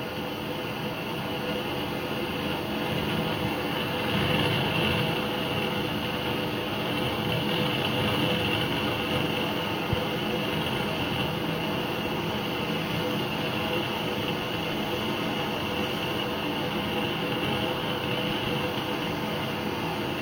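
Handheld gas torch on a small gas canister burning with a steady hiss, its flame heating the hub of a paramotor pulley wheel so the bearing will slide in.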